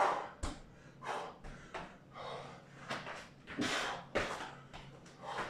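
A man breathing hard and fast through burpees without the push-up, with loud exhales about every half second to second. A couple of dull thuds from his feet and hands landing on a floor mat.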